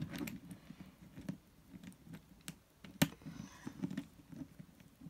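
Small clicks, taps and rustles of hands fastening a makeshift bracelet lock on a plastic drawer unit, with one sharper click about three seconds in.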